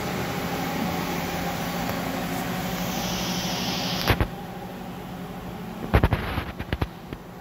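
CNC vertical turret lathe running with a steady hum and hiss. About four seconds in the sound drops to a quieter hum with a click, and a quick cluster of sharp knocks follows near the end.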